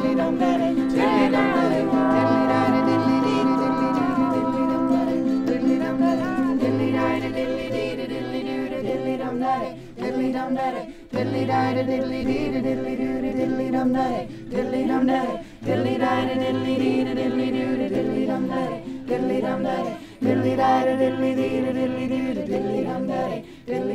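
A song: a voice singing a melody over held chords, with short pauses between phrases in the second half.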